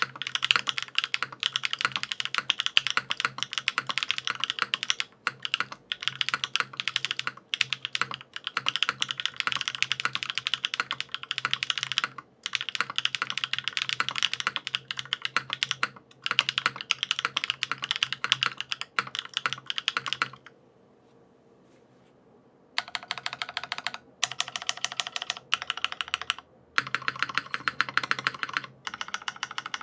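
Newone Rose75 mechanical keyboard with lubed SW Popcorn switches, an aluminium plate and GMK keycaps, typed on quickly and continuously in a run of keystrokes. The typing stops about two-thirds of the way in, then resumes in three short bursts.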